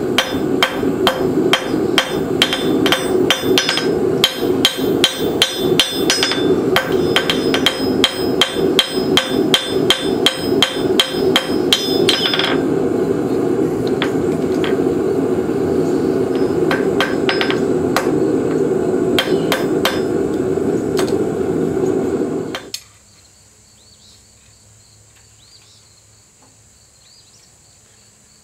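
Ball-peen hammer striking hot steel held in tongs on a blacksmith's anvil, forging a hook knife blade: a fast run of blows for about twelve seconds, then fewer, spaced blows over a steady hum that cuts off suddenly near the three-quarter mark. After that it is quiet but for faint insect chirping.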